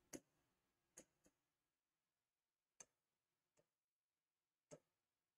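Near silence broken by about six faint, short clicks over a few seconds, the first the loudest: a stylus tapping on an interactive display board.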